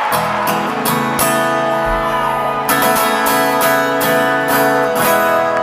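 Amplified acoustic guitar strumming sustained chords in a steady rhythm, a stroke about every half second: the instrumental opening of a live band song heard through an arena PA.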